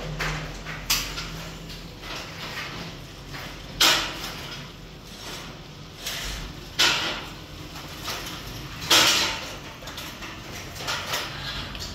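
Paint roller on an extension pole rolling paint across a ceiling: a rough, sticky hiss, with a louder stroke every two to three seconds.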